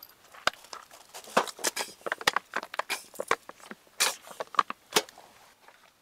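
Dry kindling being snapped and handled to light a charcoal barbecue: irregular sharp cracks and clicks, several a second, dying away about five seconds in.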